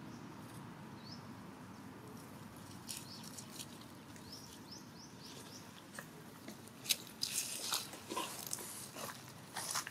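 Dry leaf litter crackling and rustling under monkeys moving about, in sharp bursts during the last few seconds. A few faint, short, high rising chirps come in the first half.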